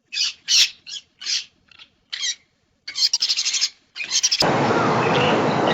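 A series of short, separate bird calls with dead silence between them, then a rapid chattering run of about ten notes a second near the middle. About four and a half seconds in, a steady rushing noise starts and stays under the calls.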